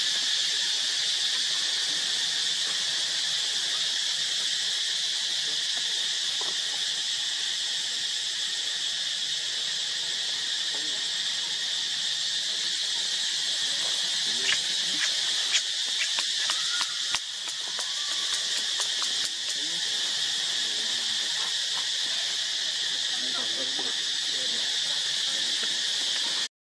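A steady, high-pitched drone of insects, unbroken throughout, with a few brief clicks about halfway through.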